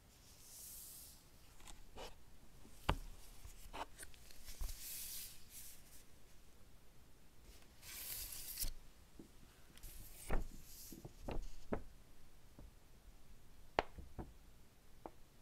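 Paper and cardboard packaging handled by gloved hands: rustling and sliding of a paper insert and box card, with a few sharp taps and knocks as pieces are picked up and set down.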